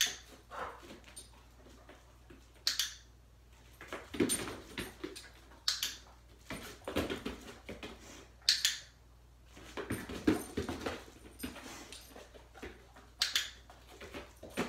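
A dog-training clicker gives a sharp click about every three seconds, marking the dog's behaviour. Between the clicks come softer sounds of the dog moving about on the mat.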